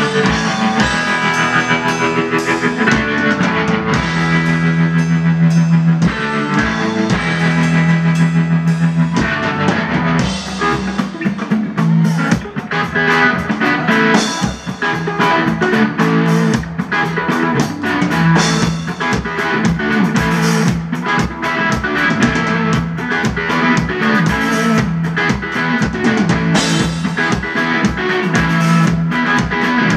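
Live rock from an electric guitar and a DW drum kit: a loud, driving guitar riff over steady, heavy drumming.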